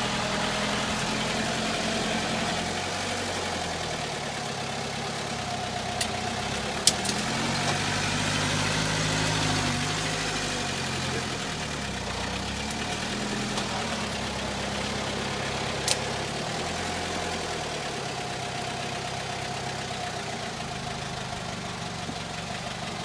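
1989 Mitsubishi Pajero 4x4's engine running while the truck is bogged in deep mud, the revs rising and falling several times. A few sharp knocks are heard along the way.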